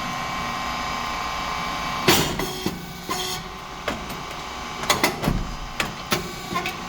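Rice cake machine running: a steady mechanical hum holding fixed tones, broken by a sharp burst about two seconds in and a series of clicks and knocks near the end.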